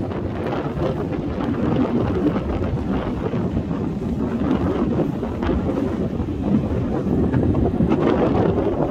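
Wind buffeting the microphone in a steady low rumble, with the sea washing in faintly beneath it.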